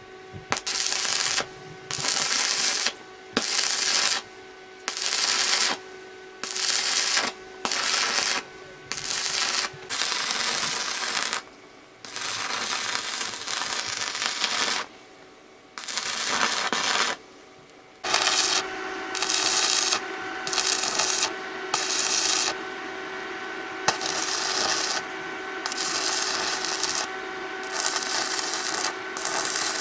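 Stick welding on steel: the electrode arc crackles and sizzles in short runs of about a second each, with brief pauses between, and one longer run near the middle.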